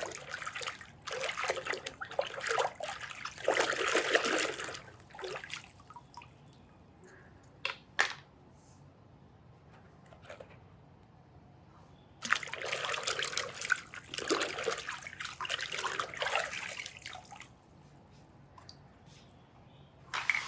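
Water running and sloshing as toy vehicles are rinsed, in two spells of several seconds each, with a single sharp knock about eight seconds in.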